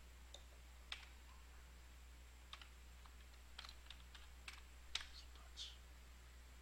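Faint keystrokes on a computer keyboard: about ten separate taps at an uneven pace, typing a short word, over a steady low hum.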